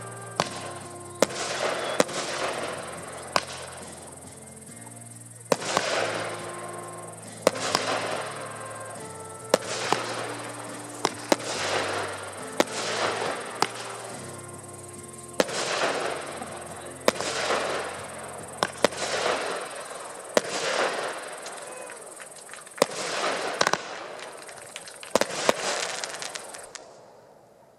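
Aerial firework shells bursting one after another, a sharp bang every second or two, each followed by about a second of crackling hiss. Background music with held low notes plays underneath and fades out about two-thirds of the way through.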